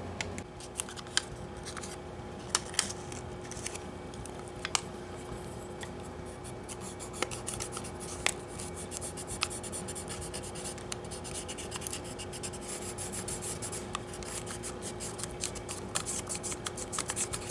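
Pencil scratching and rubbing on a sheet of paper laid over a bass guitar's control cavity, tracing the cavity's edge to make a template. There are scattered clicks and ticks, and the scribbling becomes denser in the second half, over a steady hum.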